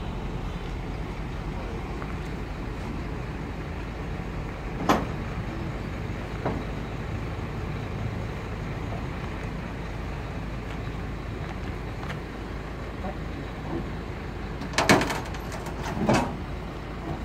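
Steady low rumble of background vehicle noise, with a sharp knock about five seconds in, a lighter one soon after, and a louder pair of clattering knocks near the end.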